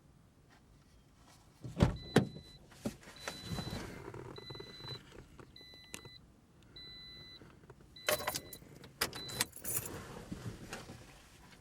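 Car warning chime beeping about once a second, high and electronic, over rustling and sharp knocks of someone moving about in the car. The loudest knocks come near the start and again about two thirds of the way through.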